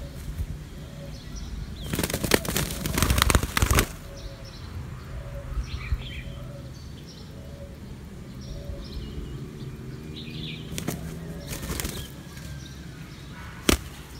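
Two spotted doves scuffling on the ground, a decoy against a wild dove, with a long burst of wing flapping about two seconds in and shorter flurries of flapping near the end. Small birds chirp faintly in the background.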